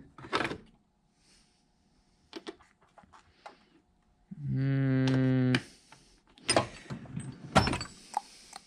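Metal sockets and tools clinking and knocking as they are rummaged through, with a steady low hum lasting just over a second midway.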